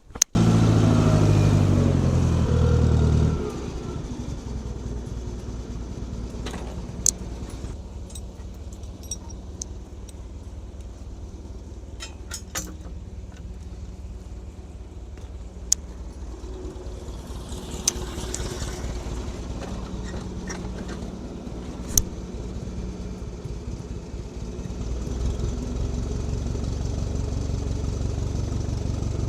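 Small forklift's engine starting up and revving for about three seconds, then settling to a steady idle with a few sharp clicks, and running louder again near the end.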